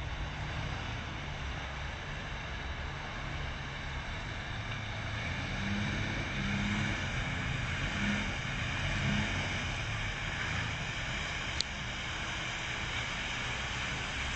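Mercedes-Benz Actros truck's diesel engine running under a heavy rushing noise, swelling in pitch and loudness several times between about five and nine seconds in. A single sharp tick near the end.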